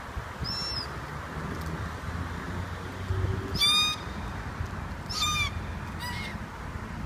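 Black cockatoos calling from a eucalyptus: four short calls, a faint one near the start, the loudest a little past three and a half seconds in, another about five seconds in and a faint one about six seconds in.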